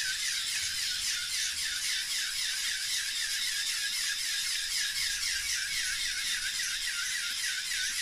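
Bank of motor-driven LEGO Technic pneumatic pumps running, a steady mechanical whirr with a hiss of air and a quick pumping cycle of about five strokes a second.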